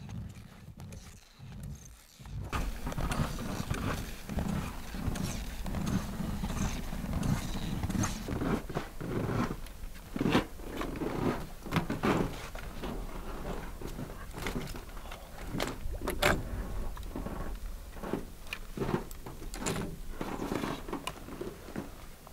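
Footsteps of a person walking on snowshoes over snow, roughly one step a second, over a low steady rumble that starts about two seconds in.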